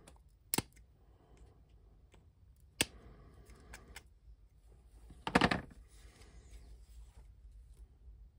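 Side cutters snipping hard plastic nubs off a toy missile rack: two sharp snaps about two seconds apart. About five seconds in comes a louder, longer clatter as the parts and tool are handled.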